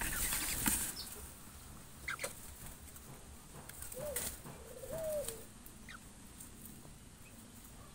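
Birds in an aviary: a brief rustle of movement at the start, a few thin high chirps, and two short, low, wavering calls about four and five seconds in.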